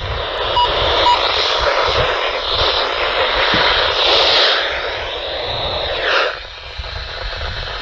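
Hissing static from a weather radio's speaker in a pause of the broadcast voice, swelling and fading, then dropping off sharply about six seconds in.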